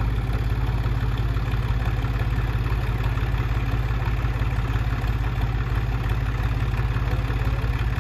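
Several farm tractors' diesel engines running steadily at high load, pulling against each other while chained together in a tug-of-war, one tractor straining hard enough to lift its front wheels. A continuous, even low rumble with no change in pitch.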